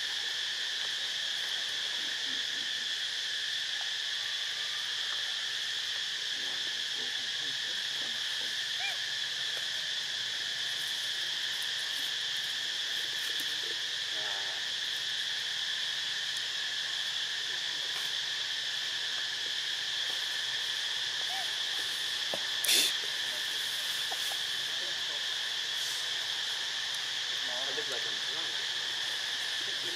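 Steady high-pitched drone of an insect chorus that never lets up, with one sharp click about 23 seconds in.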